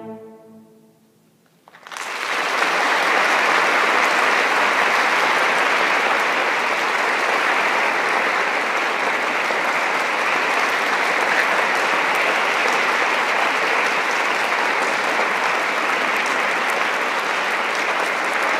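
An orchestra's last chord dies away, and after a second or so of near silence a concert-hall audience breaks into applause about two seconds in, clapping steadily and loudly from then on.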